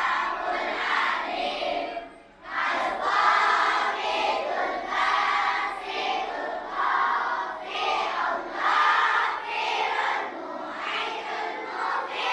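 A large group of primary-school children chanting together in unison, in short rhythmic phrases, with a brief pause about two seconds in.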